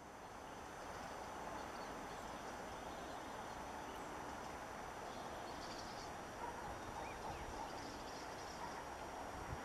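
Steady outdoor background noise with a thin, steady high tone, and from about halfway on a few faint short calls from red-legged partridges.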